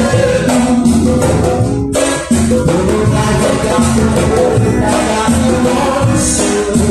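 Live band music with a steady beat, shaker- and tambourine-like percussion over bass and pitched instruments, with a brief drop in the percussion about two seconds in.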